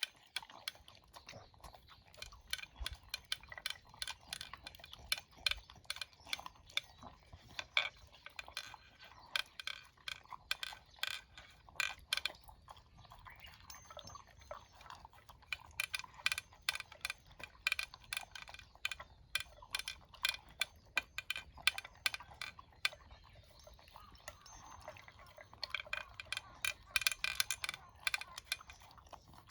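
A small pet eating dry food: quick, dry crunches and clicks in runs with short pauses.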